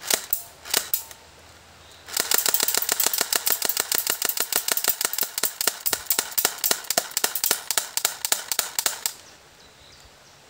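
Double Eagle M4 battery-powered airsoft gun firing: two or three single clicking shots, then about seven seconds of rapid automatic fire, an even clatter of clicks that stops abruptly near the end. It is a weak mechanism that, as the owner puts it, does not really shoot the BBs but only pushes them out of the barrel.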